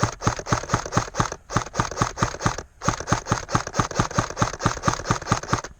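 Rapid strings of shots from an airsoft gun, about eight shots a second, in three bursts with brief pauses between them, cutting off abruptly near the end.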